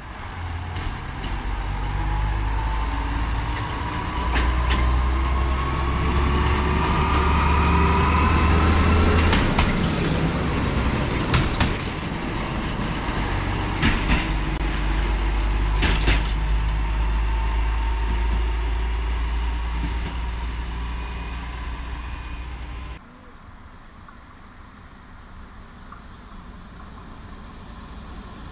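Diesel engine of a yellow railway track-maintenance vehicle running, with a whine that climbs in pitch as it gathers speed and a few sharp clicks. About 23 seconds in the sound cuts abruptly to a quieter, distant diesel locomotive approaching with freight wagons.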